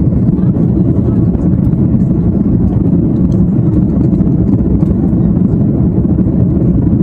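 Steady low roar of an Airbus A330-300 heard from inside the passenger cabin: engine and airflow noise, even and unbroken.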